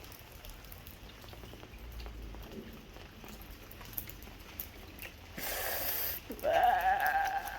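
Light rain: a faint steady patter with small drop ticks. About five seconds in comes a brief hiss, then a high drawn-out whine that rises at its start and holds for about a second.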